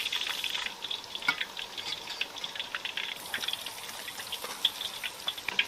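Hot frying oil crackling and sizzling in a wok after deep-frying a fish, a steady hiss with many small irregular pops.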